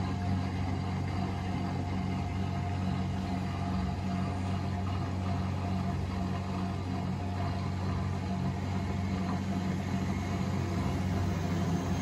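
Miele Novotronic W925 front-loading washing machine running a wash cycle with an empty drum, water sloshing inside over a steady low motor hum.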